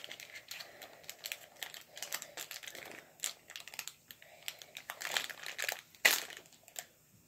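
Crinkling of a small sealed clay packet's wrapper as it is handled and pulled open by hand: irregular crackles, with one sharper, louder crackle about six seconds in.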